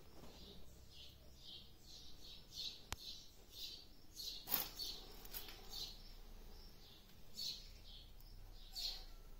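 Faint bird chirping: short high chirps at irregular intervals, with a sharp click about three seconds in.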